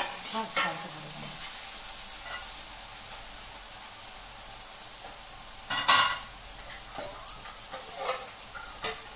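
Chilli chicken sizzling steadily in a wok, with a metal spatula scraping and stirring in the first second or so. About six seconds in there is a single loud metal clatter, followed near the end by a spoon clicking against a steel bowl as cornflour slurry is stirred.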